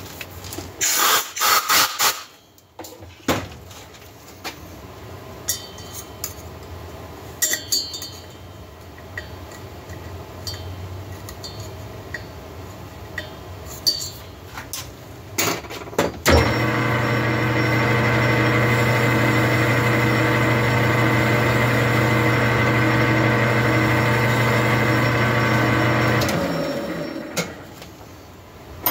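Metal lathe with a chainsaw cylinder in its chuck. Clattering and clicks of tool handling come first; then, about halfway through, the lathe starts with a clunk and runs steadily for about ten seconds with an even motor hum and whine before winding down to a stop.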